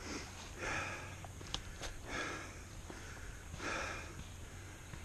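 A person breathing hard, close to the microphone: deep, noisy breaths about every second and a half.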